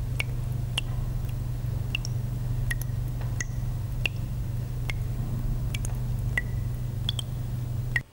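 A steady low hum with irregular sharp clicks over it, roughly one or two a second, each with a brief high ping. It starts and cuts off abruptly.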